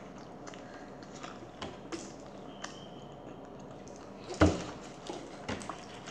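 Small scattered clicks and rustles of hands tearing a puri over a plate, with one sharp, louder knock a little past halfway and a softer one soon after.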